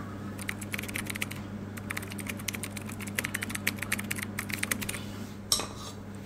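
Rapid keyboard-typing clicks in quick runs over a steady low hum, then one sharp clink of a metal spoon on a ceramic plate about five and a half seconds in.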